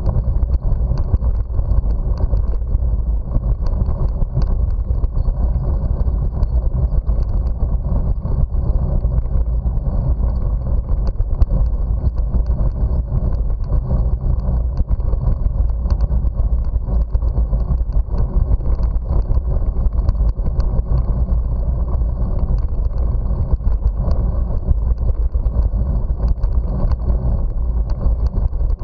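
Steady low rumble of wind buffeting the microphone while riding a bicycle, with tyre noise on a concrete cycle path.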